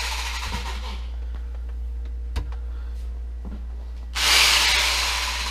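Corded power saw plugged into a newly wired outlet, its motor running in short bursts: a run dying away at the start, a few sharp clicks, then another brief spin-up about four seconds in that winds down. The saw runs whether the switch is on or off, the sign of a mis-wired switched outlet with both halves live all the time.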